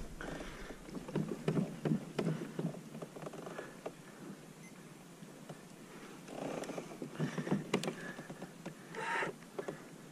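Plastic pedal-drive fishing kayak being handled and pedalled: irregular knocks and clicks, with a couple of longer, louder rustling stretches in the second half.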